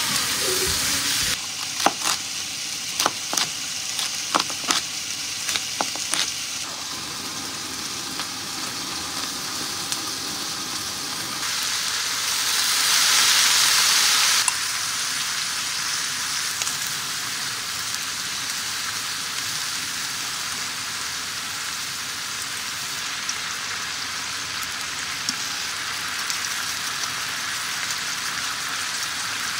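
Stir-fry sizzling in a frying pan, with chopsticks clicking against the pan several times in the first few seconds. About twelve seconds in, liquid poured from a bottle makes the sizzle flare up loudly for about three seconds, then it settles back to a steady sizzle.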